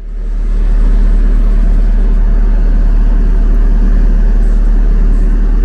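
Heavy machine's diesel engine running at a steady speed, a loud, deep, even drone that fades in over the first second.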